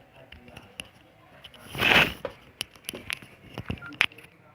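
Scattered clicks and taps from handling a keypad mobile phone, with one short, loud rustle about two seconds in.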